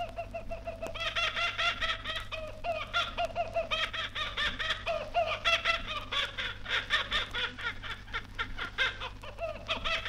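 Laughing kookaburra calling: a continuous run of fast, repeated cackling notes that swells and ebbs in waves. It is heard from an old vinyl record, with surface crackle and a low hum underneath.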